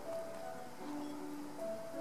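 Background music: a slow, simple melody of held notes. Faint clicks underneath fit the cat chewing and licking wet food from a ceramic dish.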